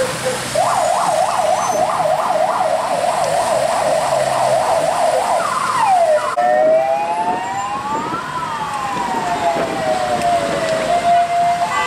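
An emergency vehicle's siren: a fast rising-and-falling yelp of about three cycles a second for some five seconds, then a slow wail that climbs for about two seconds and falls away over three, ending on a steady tone near the end. Traffic idles underneath.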